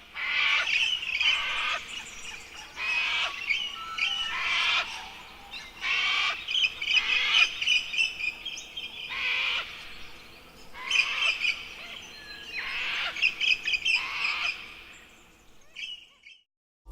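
Birds calling in a busy chorus: rapid high chirps and trills, with repeated calls that sweep downward in pitch, fading out near the end.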